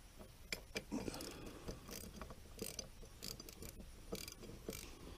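Faint, irregular metallic clicks and short runs of socket-ratchet clicking as the bolt of a new sacrificial anode is turned in on the outboard.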